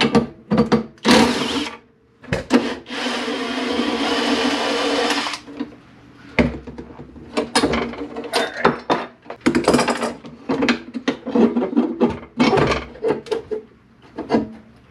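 Cordless driver backing out a handlebar bolt on a push mower: a short burst about a second in, then a steady run of about three seconds. It is followed by a string of short metallic clanks and rattles as the steel handlebars are worked loose.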